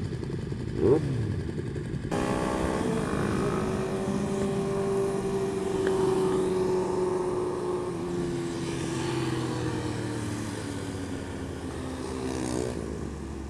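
Motorcycle engine running while riding. The sound steps up about two seconds in, then holds a steady pitch that slowly falls as the bike eases off, with another pitch change near the end.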